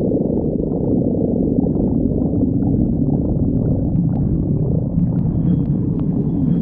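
A person's stomach growling, recorded close up: continuous low gurgling rumbles with pitches that waver and glide up and down.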